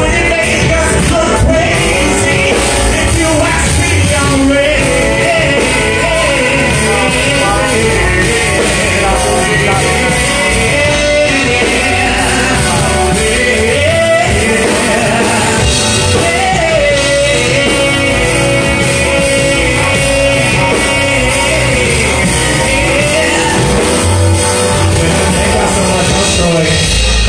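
Live male vocals sung into a microphone over keyboard accompaniment, a soul/R&B ballad performed by a singer with a band.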